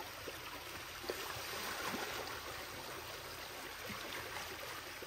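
Water sloshing and trickling as seals shift about in the shallow water at the edge of their pool, with a few small splashes. It is a little louder about two seconds in.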